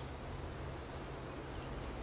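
Steady outdoor ambience: an even rushing noise with a faint bird chirp near the end.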